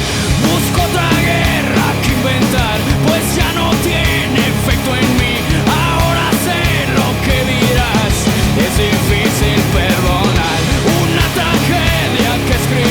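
Loud rock band music with a driving, steady drum beat: a punk-rock song playing continuously.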